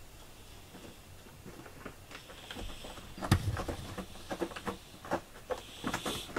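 Irregular light taps and knocks, several a second, with the loudest knock about three seconds in.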